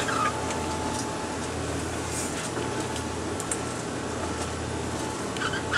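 A boat's engines droning steadily, heard from inside the enclosed wheelhouse while the boat is under way. There is a low hum and a faint steady whine.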